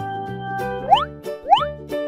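Light children's background music with two short cartoon sound effects that slide quickly upward in pitch, about one and one and a half seconds in.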